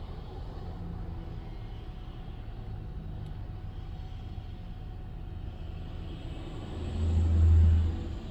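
Steady low engine rumble that swells loudly about seven seconds in and dies back down within about a second and a half.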